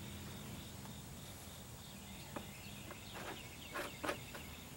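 Insects chirping steadily in the background, with a few faint clicks and knocks about two and a half to four seconds in as plastic jugs are handled.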